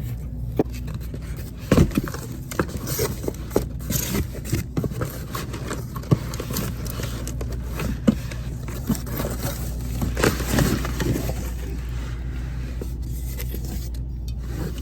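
Boxes and merchandise being handled and unpacked: irregular scrapes, rustles and small knocks over a steady low background hum.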